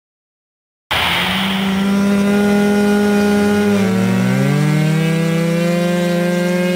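Small model aircraft engines running, cutting in abruptly about a second in: one holds a steady high pitch while a second engine's pitch rises from about four seconds in.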